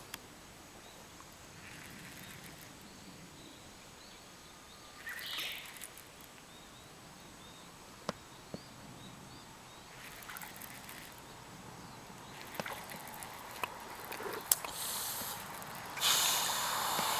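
Quiet outdoor ambience by a wooded pond, with scattered small clicks and a few faint bird chirps. A louder steady rushing noise comes in near the end.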